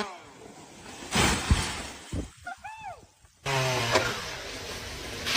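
A sudden loud crash with breaking and cracking about a second in, typical of a felled tree coming down; short voice sounds follow.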